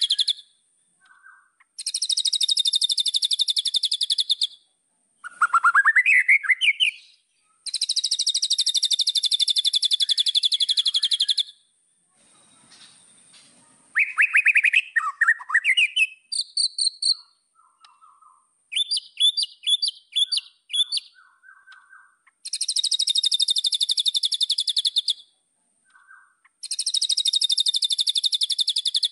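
White-rumped shama (murai batu) singing. Long, very fast buzzing trills, each a few seconds long, come round again and again. Between them it gives rising whistled phrases and quick runs of sharp chattering notes.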